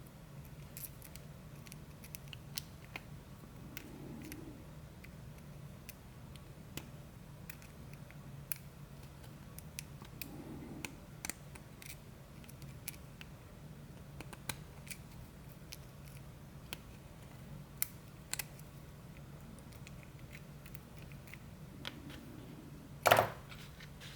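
Small metallic clicks and ticks of an Abloy Profile disc-detainer cam lock being taken apart by hand, with one louder clack near the end, over a faint steady hum.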